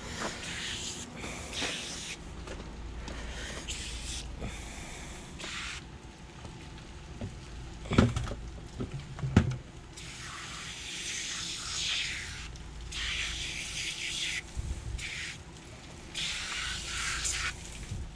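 Aerosol can of Super Clean foaming degreaser spraying in repeated hissing bursts that start and stop. Two sharp knocks come about eight and nine and a half seconds in.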